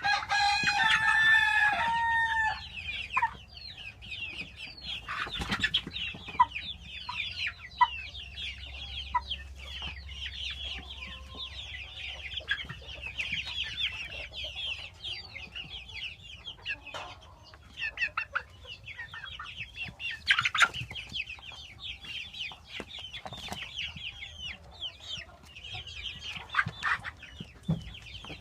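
A rooster crows once in the first two seconds or so, over the continual short high-pitched calls and clucking of a flock of chickens.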